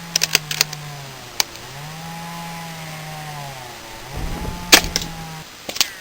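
A small motor or engine running steadily, its pitch sagging and recovering twice, with several sharp clicks, the loudest nearly five seconds in.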